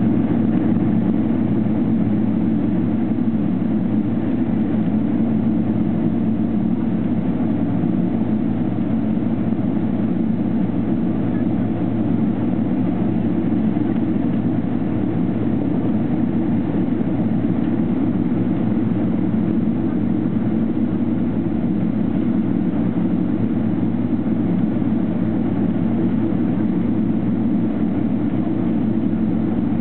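Steady, unchanging drone of a Boeing 777-300ER's GE90 engines heard from inside the passenger cabin as the jet taxis, with no spool-up.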